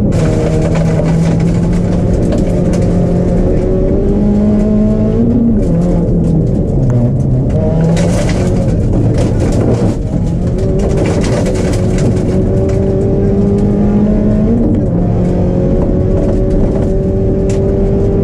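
Ford Focus rally car's engine heard from inside the cabin, pulling hard on a gravel stage, its pitch climbing and then stepping down at each gear change. Short bursts of gravel noise cut in now and then.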